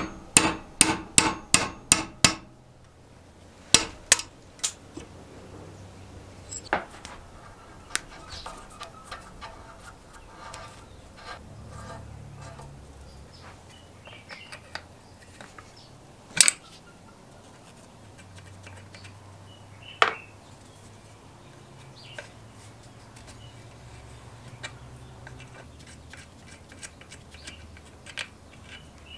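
Hammer striking a steel pin punch to drive a pin out of a lever clamped in a vise: a quick run of sharp metallic blows in the first two seconds and three more at about four seconds. Afterwards come scattered light clinks of a spanner and metal parts on a roller hub, with a single loud knock about halfway through.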